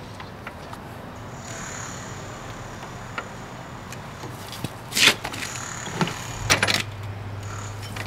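A few sharp metallic clacks and knocks from a manual butt-fusion machine for polyethylene pipe as it is handled. The loudest comes about five seconds in, followed by a cluster a second or so later, over a steady low hum.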